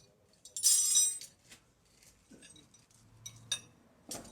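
Metal parts or hand tools clinking together: a loud clatter about half a second in, then a few lighter clicks and taps.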